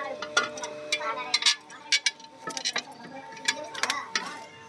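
Irregular sharp metallic clinks and taps from a flat steel plate being handled and set against a tractor's front steel bracket, over a faint steady hum.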